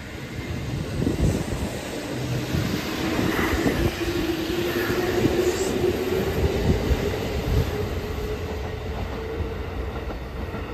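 Kintetsu 2050 series electric train pulling out and gathering speed: the motor whine climbs steadily in pitch as it accelerates, over the rumble and clatter of the wheels on the rails.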